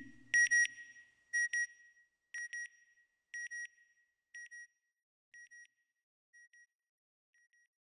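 Satellite-style electronic beeps from a logo sound effect: a short high double beep about once a second, eight times, fading steadily until almost gone. The tail of a low whooshing rumble dies away in the first second.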